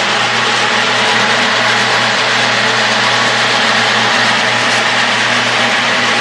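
Coffee-drying machinery running steadily while the dryer is being loaded with coffee: a constant motor hum under a dense rushing, rattling noise.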